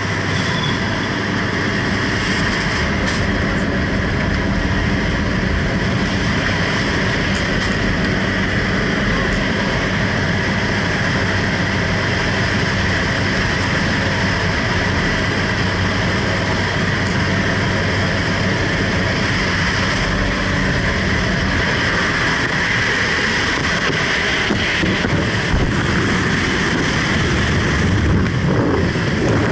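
Steady drone of a jump plane's engine and propellers heard from inside the cabin, mixed with wind rushing in through the open door.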